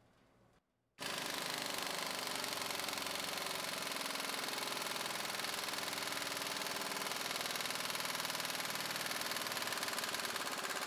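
Pneumatic impact wrench hammering steadily in reverse through a 1.1 lb welded hex-nut DIY weighted socket on a dyno's 19 mm test bolt, starting about a second in.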